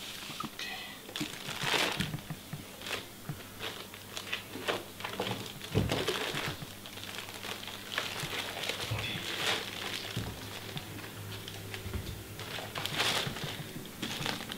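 Plastic wrapping bag crinkling and rustling in irregular bursts as foam packing end caps are pulled off a wrapped power conditioner, with a dull thump about six seconds in.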